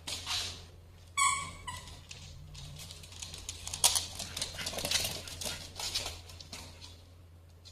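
A small pet gives one short high squeal about a second in, followed by scattered clicks and rustling as it moves about.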